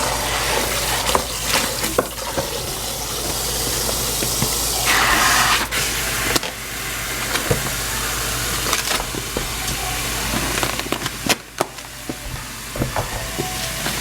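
Water running and splashing in a kitchen sink, with small knocks and clinks of dishes and food being handled.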